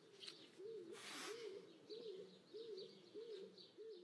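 Faint dove cooing over and over, one low rising-and-falling coo about every two-thirds of a second, with a brief soft hiss about a second in.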